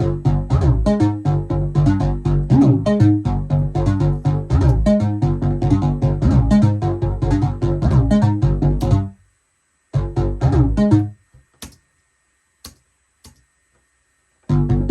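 Synthesizer playing a fast sequenced pattern of short notes over a bass line. It cuts out about nine seconds in, returns briefly a second later, then a few clicks and silence before the pattern starts again near the end.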